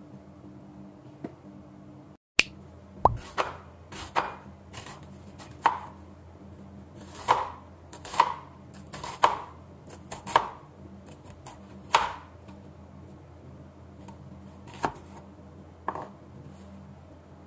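Hollow-edge santoku knife slicing a red onion on a cutting board: about a dozen separate knocks of the blade against the board, spaced irregularly about a second apart, starting a couple of seconds in.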